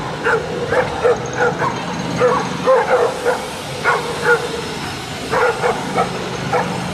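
A pack of street dogs barking repeatedly in short, sharp barks, about two a second, with a brief lull about two-thirds of the way through. A steady low rumble runs underneath.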